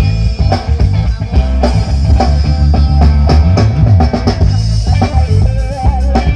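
Loud music with a drum kit, guitar and heavy bass, played through a PA sound system under a sound check that is testing its low end.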